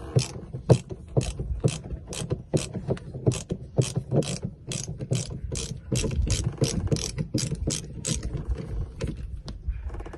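Ratcheting screwdriver clicking in short, even bursts about three times a second as a screw in a dinghy's gunwale is turned, the clicks thinning out near the end.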